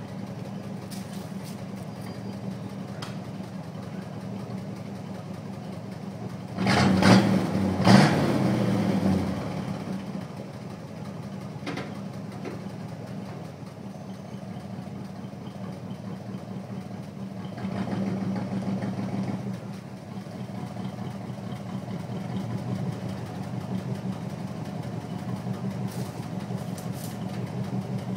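1984 Chevrolet C10's 305 small-block V8 with a four-barrel carburettor, running through true dual exhaust with rusted turbo mufflers. It idles steadily, is revved hard twice in quick succession about seven seconds in and falls back to idle, then is revved once more, lighter, at about eighteen seconds.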